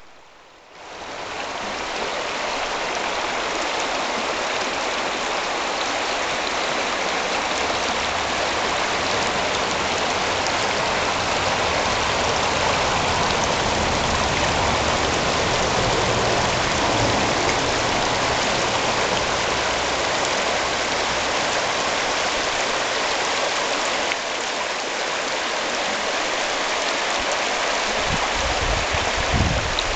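Shallow mountain creek rushing over rocks, a steady, even wash of water that fades in over the first second. A short low rumble joins it near the end.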